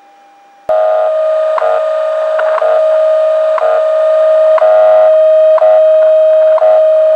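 The WWV time-signal station on 10 MHz, received in upper sideband on a uBITX HF transceiver and played through its speaker. It starts suddenly under a second in: a steady tone over a hiss of band noise, broken by a short tick once every second (the station's seconds pulses).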